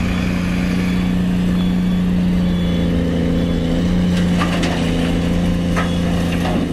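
Caterpillar 336 hydraulic excavator's diesel engine running steadily under load, with a few sharp knocks about four and a half and six seconds in as earth and rock are dumped into a dump truck's steel bed.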